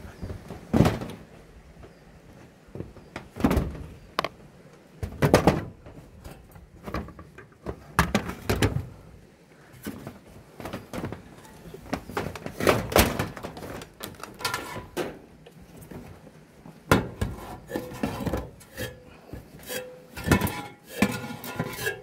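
Irregular footsteps of rubber boots knocking on corrugated steel roofing sheets. Near the end the steps pick up a faint metallic ring as they move onto an aluminium ladder.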